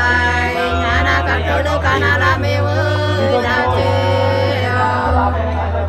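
Two Nùng women singing sli, the Nùng antiphonal folk song, unaccompanied, in long held notes that waver and bend. A steady low hum runs underneath.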